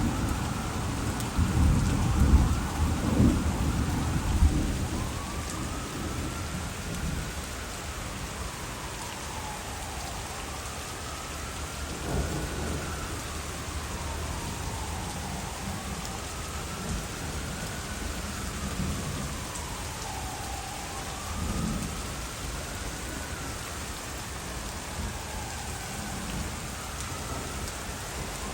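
Heavy rain pouring down with thunder rumbling, loudest in the first few seconds and again briefly twice later. A siren wails slowly up and down in the background, rising and falling every few seconds.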